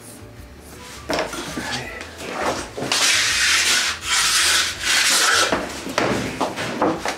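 Bread dough being shaped and scraped on a wooden work surface: a run of rubbing, scraping strokes that starts about a second in and is loudest from about three to five and a half seconds in.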